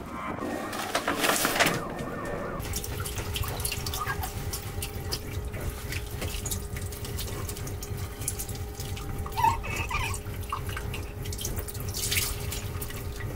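Brief rustling of sail canvas at the start. Then a galley tap runs water into a stainless steel sink while dishes are rinsed, with a few light clinks over a steady low hum.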